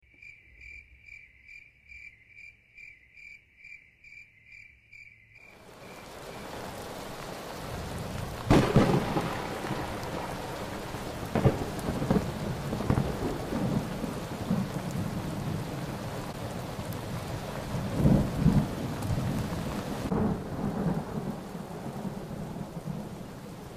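Rain falling steadily, fading in after a few seconds, with several loud claps and rumbles of thunder. Before the rain comes in, a high-pitched pulsing tone repeats about twice a second.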